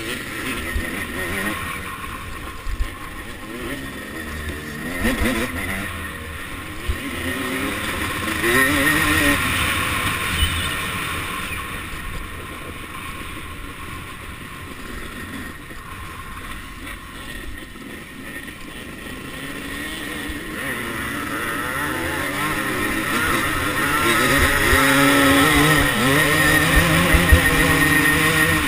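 1989 Suzuki RM250 single-cylinder two-stroke motocross bike heard from on board, its engine revving up and down as it is ridden hard through the gears. It gets louder about eight seconds in and again in the last third.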